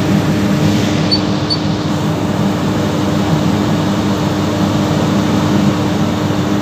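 Steady hum of a stopped train's running machinery, with a constant low tone, mixed with the rush of floodwater pouring over the track in heavy rain.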